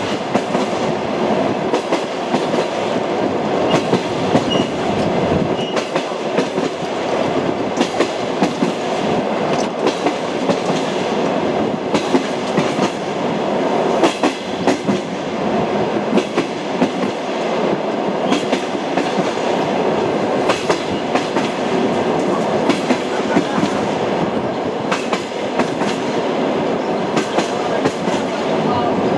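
Train wheels knocking over rail joints, with frequent irregular clicks over the steady running noise of a train in motion.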